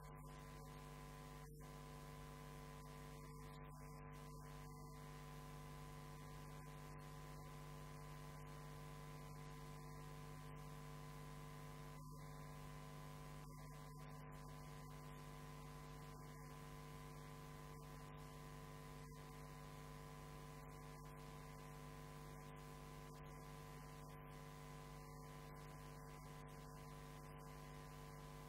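Near silence: a steady electrical hum with faint hiss.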